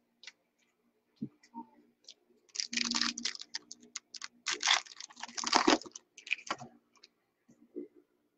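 Handling noise: scattered light clicks, then two stretches of rapid clicking and rustling about three and five seconds in, over a faint steady hum.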